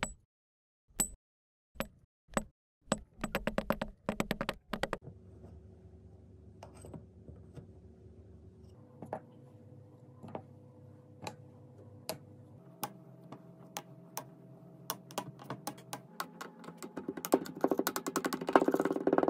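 Kinetic sand balls dropping into a glass tumbler: a few separate soft thuds, then quick clusters of them. A quieter stretch with scattered ticks follows. Near the end a glass cylinder presses down on the sand with a dense crackling crunch that grows louder.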